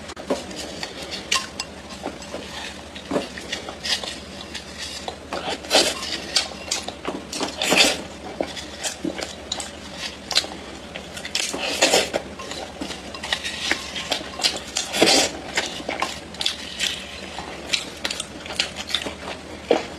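Close-miked crunching and crackling of dry edible clay being bitten and chewed: irregular sharp clicks and crumbly crackles, with a few louder crunches.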